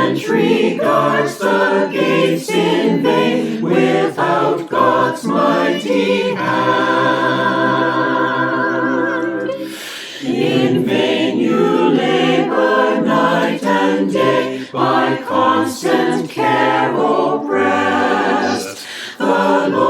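Church choir singing a hymn without spoken words, with one long held chord midway through.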